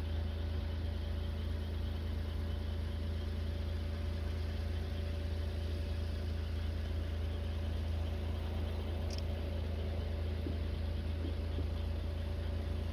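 A steady low drone with a few faint constant tones riding above it, engine-like in character, at an even level throughout. No distinct firework bangs stand out.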